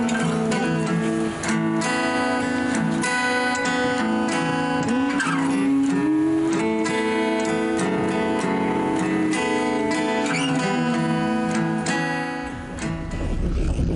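Acoustic guitar played with a pick, steady picked and strummed music. Near the end the guitar dies away and a low rumble sets in.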